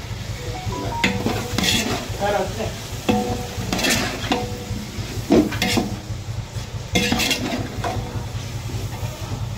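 A metal ladle stirring and scraping chopped vegetables and tomatoes around a large metal cooking pot, in irregular strokes about once a second, some leaving a brief metallic ring. A steady low hum runs underneath.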